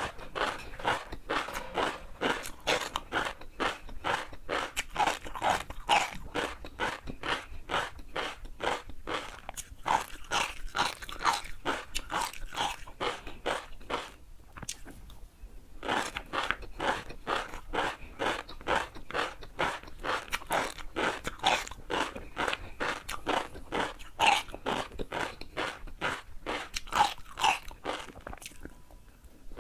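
Crunchy food being bitten and chewed close to the microphone: a rapid, continuous run of crunches, broken by a short pause about halfway through and tailing off near the end.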